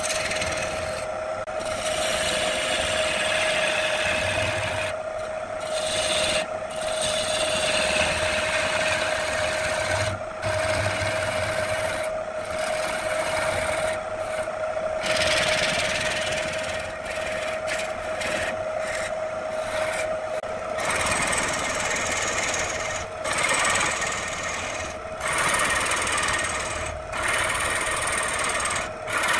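Wood lathe running with a steady whine while a hand-held gouge cuts the spinning wooden vase blank. The hiss of the cut breaks off briefly again and again as the tool lifts off the wood.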